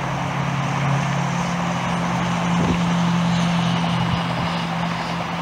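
Steady drone of jet airliner engines at taxi power, with a low steady hum that steps up slightly in pitch about two seconds in and a faint high whine in the middle.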